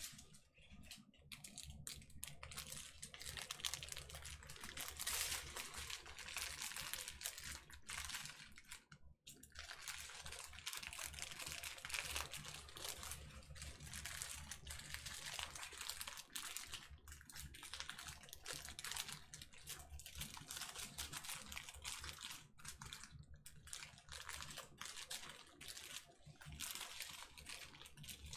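Bags of diamond-painting resin drills being handled and rolled up: a dense, continuous rattle of tiny clicks with plastic crinkling.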